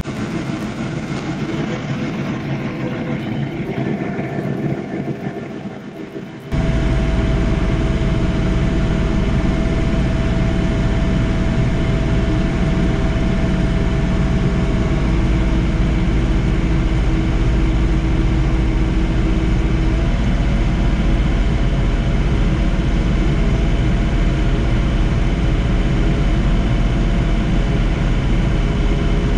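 John Deere 3046R compact tractor's diesel engine running steadily while snowblowing. About six seconds in it abruptly becomes louder and deeper, and steady tones in it shift pitch a couple of times.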